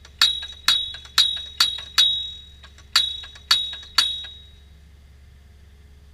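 Excavator-mounted post thumper hammering a steel fence post into the ground: sharp metallic strikes with a bright ringing tone, about two a second, five in a row, a short pause, then three more before it stops.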